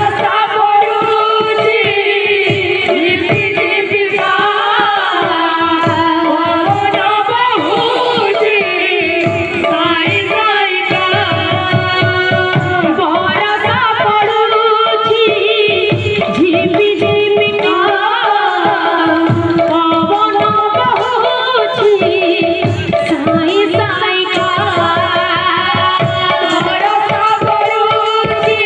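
A woman singing a folk song, with a barrel drum beating steadily beneath her voice.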